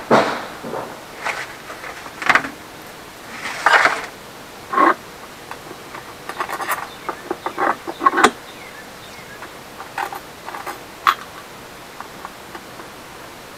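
Irregular clicks, knocks and scrapes of a plastic wheel being worked onto and off a metal axle rod on an air compressor's plastic housing, with a cluster of sharp clicks about halfway through.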